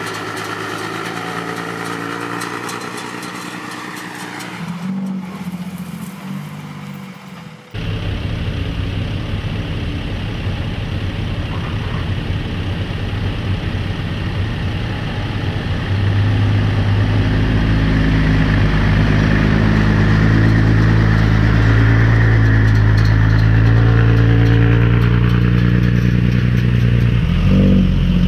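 Heavy diesel engine of a loaded dump truck working hard as it climbs out of an earth pit, with a deep steady note. The sound changes abruptly about a quarter of the way through, and the engine gets louder just past halfway and holds there.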